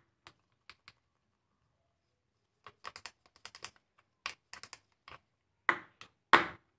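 Metal cake tin filled with cake batter being tapped to settle the batter and knock out air bubbles: a run of light, irregular clicking taps, sparse at first, then quicker and louder near the end.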